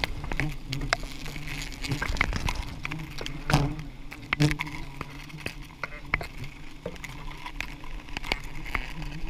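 A swarm of giant honey bees (Apis dorsata) buzzing close around the microphone with a low, wavering hum. Many sharp taps and clicks sound right at the microphone throughout.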